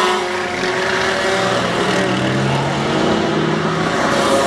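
Several racing kart engines running at speed on the circuit, their pitch rising and falling as the drivers accelerate through the bends. One kart passes close, loudest near the end.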